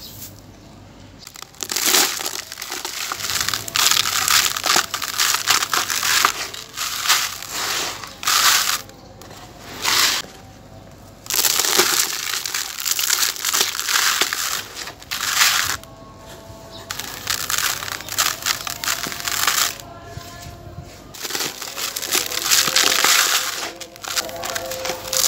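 Hands crushing crumbly sand-cement casts, the grit and dust pouring into a plastic basin: gritty crunching and crumbling in bursts of a few seconds, with short pauses between.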